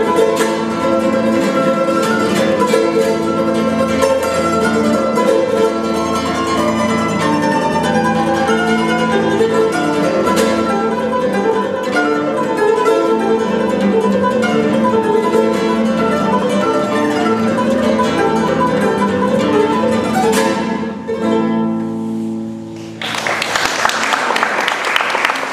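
Charango playing a fast tarantella, with quick picked and strummed notes. About 21 seconds in, a final chord rings out and fades, and applause starts about two seconds later.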